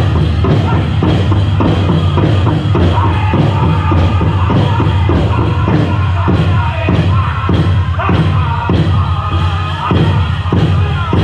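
Powwow drum group singing a chicken dance song: voices singing together over a steady, even beat on a large powwow drum.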